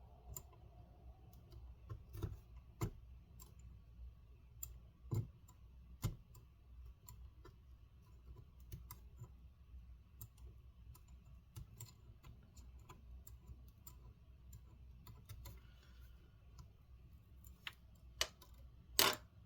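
Small tool clicking and tapping irregularly against a laptop display panel while scraping off adhesive that keeps shredding, over a faint low hum. Sharper knocks come a few seconds in and near the end.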